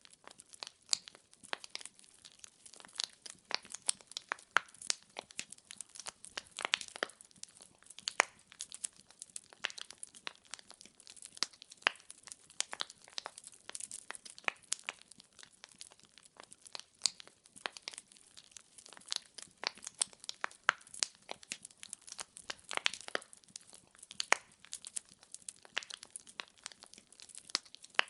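Burning firewood crackling: irregular sharp snaps and pops, several a second, over a faint hiss.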